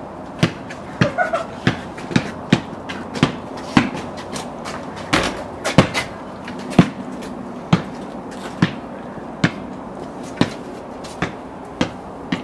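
Basketball being dribbled on a hard floor: a steady run of single bounces, about one a second, a little quicker in the first few seconds.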